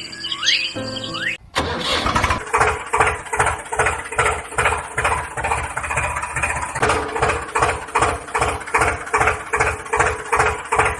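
Engine chugging with an even beat of about two to three pulses a second over a steady hum, starting abruptly about a second and a half in after a brief moment of birdsong and insects.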